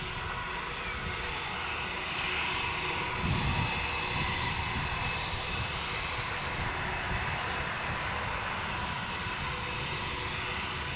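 Airbus A320-232's IAE V2500 turbofan engines running at low taxi thrust: a steady jet whine with several high tones over a low rumble, growing a little louder about two seconds in.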